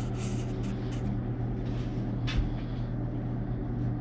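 A steady low mechanical hum, with a few light clicks and one sharper knock a little over two seconds in.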